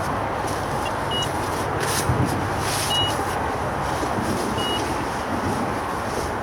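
Steady traffic noise from the A14 road bridge, with three short high beeps about two seconds apart.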